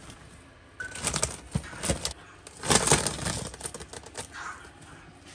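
Frilled lizard biting and chewing an insect taken from feeding tweezers: rapid crunching clicks in two bursts, about a second in and around the middle, the second one louder.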